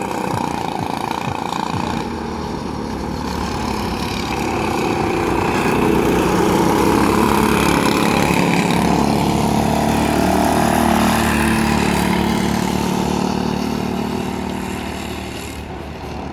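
Go-kart engines running as karts lap the track, swelling louder toward the middle and easing off near the end.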